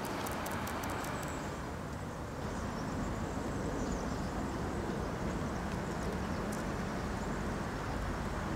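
Steady outdoor street ambience of traffic noise, with a few faint ticks in the first second or two.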